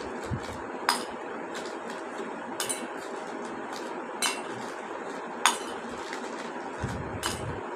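Naphthalene mothball pieces dropped one at a time into a metal bowl, each landing with a sharp clink, about five in all, a second or more apart, over a steady background hiss.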